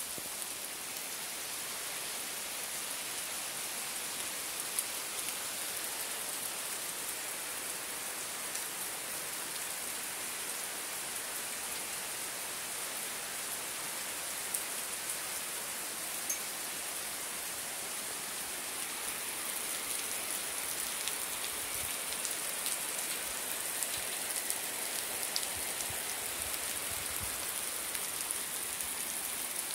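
Steady rain falling on garden foliage and lawn: an even hiss with a few sharper drop ticks.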